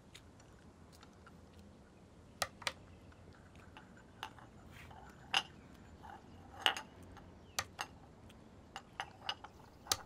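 Light clinks of clay teaware: a small clay teapot's lid and cups being handled on a tea tray. About a dozen short, sharp clinks come at uneven intervals, starting a couple of seconds in and coming more often in the second half, over a faint low hum.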